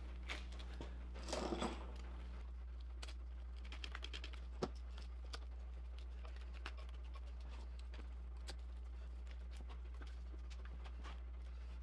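Spring clamps being snapped onto a glued laminated canoe stem on its bending form: scattered clicks and knocks of the clamps' jaws and handles, the sharpest about four and a half seconds in, with a brief rustle just over a second in. A steady low hum runs underneath.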